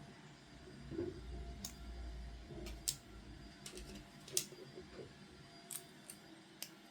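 Small plastic toy pieces being handled, with a dull rubbing rumble and about seven sharp light clicks and taps spread irregularly through.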